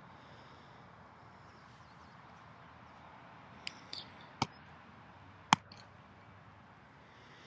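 A few short sharp knocks and clicks, the loudest about five and a half seconds in, over a steady background hiss.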